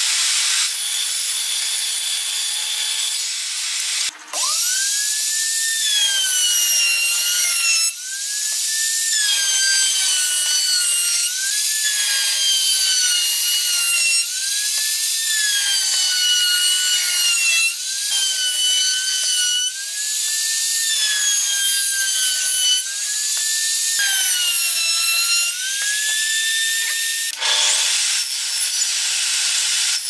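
Woodworking power tool's motor whining high as it spins up about four seconds in. Its pitch then sags under load with each piece fed through and recovers, about nine times, every two to three seconds. A steady hiss of running machinery comes before the spin-up and after the whine cuts off near the end.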